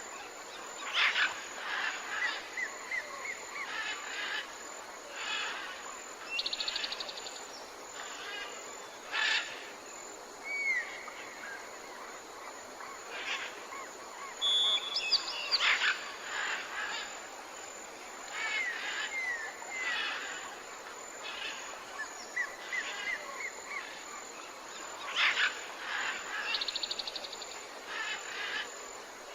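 Jungle ambience: several birds calling over a steady background hiss, with repeated short chirps, a few louder sharp calls every several seconds, and brief high trills.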